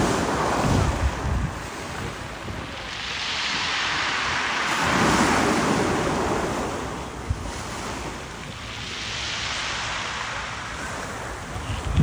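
Small waves breaking on a pebble beach and washing over the stones, swelling and fading about every four to five seconds.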